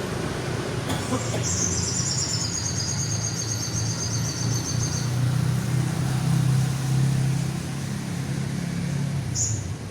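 A songbird gives one long, high trill lasting about three seconds, starting a second or so in, and a short high chirp near the end. A steady low rumble runs underneath and swells in the middle.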